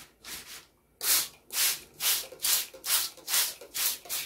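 Hand-held plastic trigger spray bottle spritzing water onto paper: a quick run of short hissing squirts, about two a second, after a brief pause about a second in.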